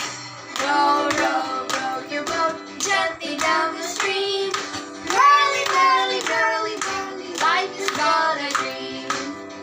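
Children's song: a child-like singing voice carrying a melody over instrumental backing with a steady beat.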